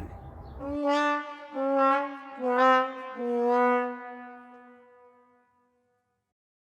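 Sad-trombone sound effect: four descending brass notes, the last held longest and fading away, the comic 'wah-wah-wah-waah' of a letdown.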